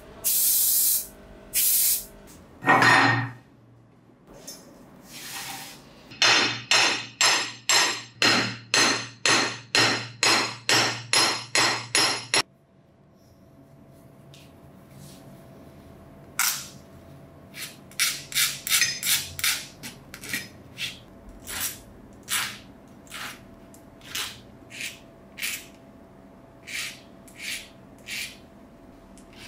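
Short hisses from a spray paint can, then a hammer striking metal: a steady run of ringing blows, about two a second, followed after a break by lighter, irregular taps.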